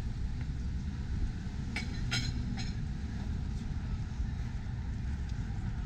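City street ambience: a steady low rumble of traffic. About two seconds in, a brief cluster of high-pitched sounds cuts through.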